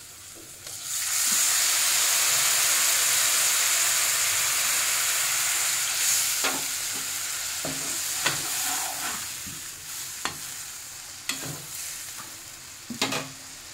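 A cup of water poured into hot oil and fried spice masala in a non-stick kadai, bursting into a loud hiss and sizzle about a second in that slowly dies down. A slotted spoon stirring the pan knocks against it several times in the second half.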